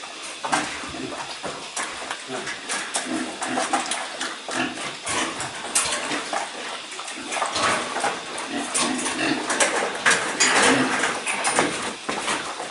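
Farm animals calling, mixed with many scattered clattering knocks.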